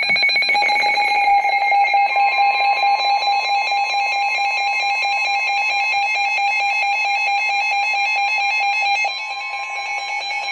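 Emergency Alert System attention signal: a loud, steady two-tone alarm, the higher tone joining the lower one about a second in.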